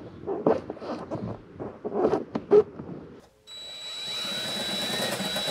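A few seconds of handling knocks and rustles, then a power drill starts and runs steadily with a high whine, opening up a mounting hole for a relay.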